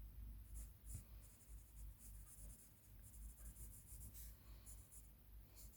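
Pencil scratching on paper in short, faint strokes, shading in detail on a drawing.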